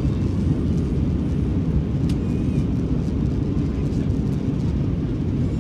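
Steady low rumble of an Airbus A320 in flight, heard as even engine and airflow noise from inside the cabin.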